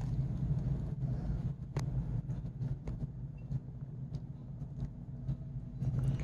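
Steady low hum with faint scattered light clicks and one sharper click about two seconds in: small kitchen handling sounds of a metal measuring cup while a thick glaze is poured over a ham in a slow cooker.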